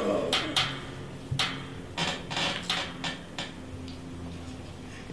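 A series of irregular sharp clicks and knocks of hard objects being handled, about eight in the first three and a half seconds, each with a short ring, over a faint low hum.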